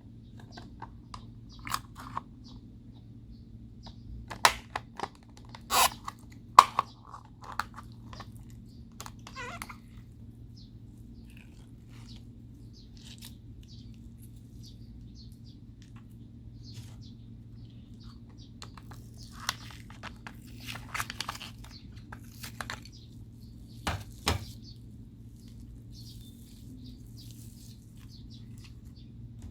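Slime being worked by hand: scattered sticky clicks, pops and crackles in bursts with quiet gaps between, over a steady low hum.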